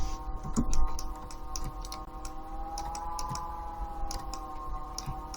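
Computer keyboard and mouse clicks, scattered irregular taps, over a steady faint hum.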